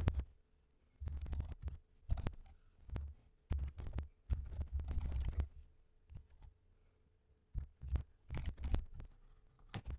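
Computer keyboard typing: runs of dull, thumpy keystrokes, with a pause of about two seconds midway before the typing resumes.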